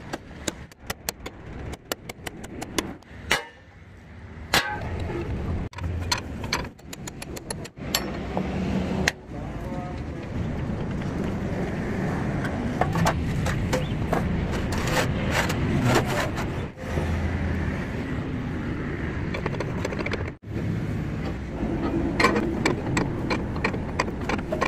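Hammer blows on the steel chassis frame of a fire-burnt Hino truck: sharp metallic strikes in clusters, thickest in the first several seconds and again near the end. Under them runs a steady mechanical rumble.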